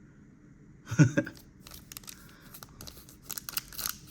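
Foil trading-card pack wrapper being torn open and crinkled by hand, a rapid run of small crackles from about halfway in, after one short thump about a second in.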